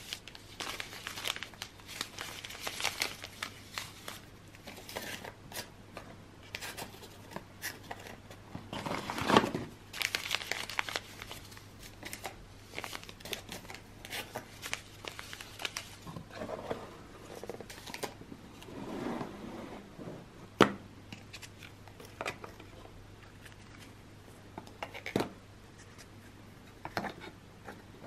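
Paper tea-bag sachets rustling and crinkling as they are handled and slid into the compartments of a tea box, with scattered light taps and clicks; the sharpest knocks come about nine and twenty seconds in.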